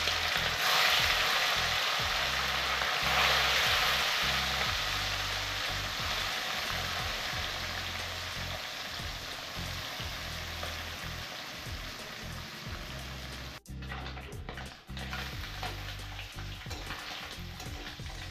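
Pieces of amudi fish sizzling as they go into hot mustard oil in a steel kadai. The frying hiss is loudest in the first few seconds, then dies down gradually as the oil settles around the fish.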